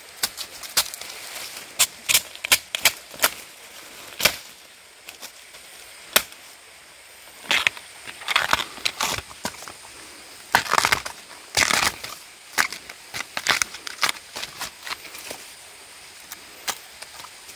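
A machete chopping at the tough sheath of a fresh bamboo shoot, then the husk being torn and peeled away. There is a quick run of sharp chops in the first four seconds, longer rasping tears around eight and eleven seconds, and then lighter snaps.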